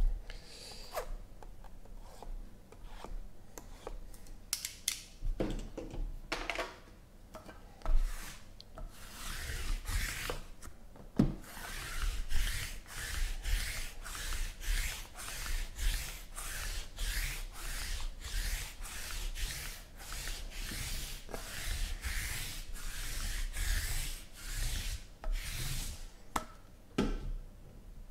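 Cardboard boxes being handled, with scattered knocks and slides, then from about nine seconds in a hand-held roller rubbed back and forth across the stacked boxes in even rasping strokes, about two a second. The strokes stop shortly before the end.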